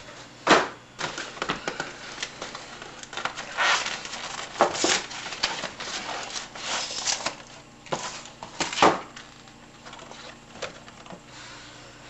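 Frozen TV dinner's cardboard box and plastic tray being handled and opened by hand: irregular crackling and rustling with sharp snaps, the loudest about half a second in and again near the ninth second.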